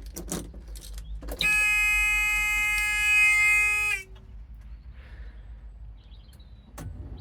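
Electronic warning buzzer in a Hitachi excavator's cab, sounding at key-on before the engine is started: one steady buzzing tone for about two and a half seconds, starting about a second and a half in and dropping slightly in pitch as it cuts off. A few clicks and knocks come before it.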